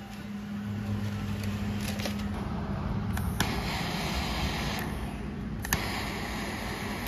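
A steady low hum with a few sharp clicks and rustling as metal parts and foil are handled before welding.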